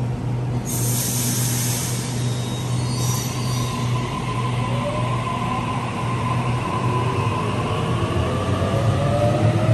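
Sydney Trains B-set double-deck electric train pulling away from the platform. A steady low hum is heard throughout, with short hisses about a second in and again about three seconds in. From about halfway through, a whine rises slowly in pitch as the train gathers speed.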